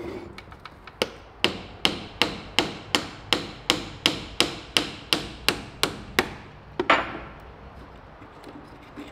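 Hammer striking an old wooden wheelbarrow wheel during a repair: a run of about fifteen quick, even blows, roughly three a second, then one louder blow about seven seconds in.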